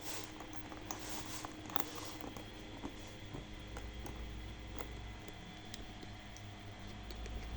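Rustling and light clicks of packaging and parts being handled, with a short rustle at the start and another about a second in.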